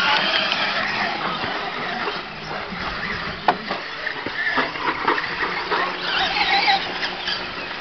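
Radio-controlled monster trucks racing on a dirt track, their small engines whining and rising and falling in pitch as they speed up and slow down. There is a single sharp knock about three and a half seconds in.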